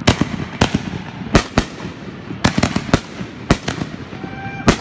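Fireworks grand finale: aerial shells bursting in a rapid, irregular string of about a dozen loud bangs, some in quick pairs.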